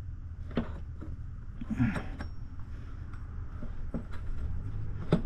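A few short, light clicks and knocks of motorcycle parts and tools being handled during a rear brake bracket fitting, the last one the loudest, over a steady low rumble.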